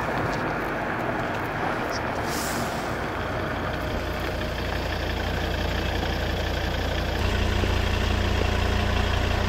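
A Volvo saloon car approaching on the road and pulling up, its engine running. A low steady hum builds from about four seconds in and grows stronger as the car stops and idles near the end.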